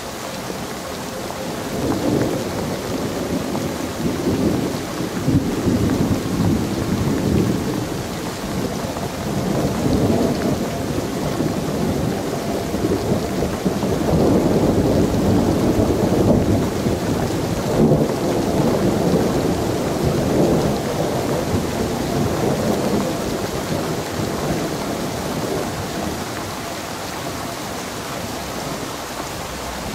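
Tropical storm noise: a steady rushing like heavy rain and wind, with low rumbles that swell and fade every few seconds and ease off near the end.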